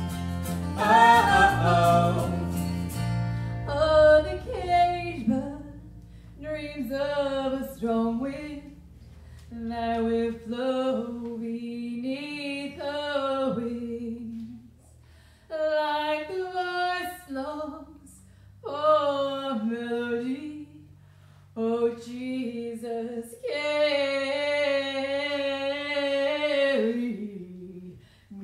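Live worship song: a woman's voice sings slow, drawn-out phrases over acoustic guitar, finishing on a long held note near the end.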